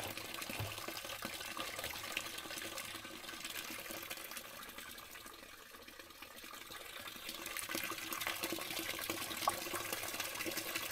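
Water running from a PVC downspout pipe through wire mesh into a plastic rain barrel, a steady splashing flow as the barrel fills. It fades briefly about halfway through, then rises again.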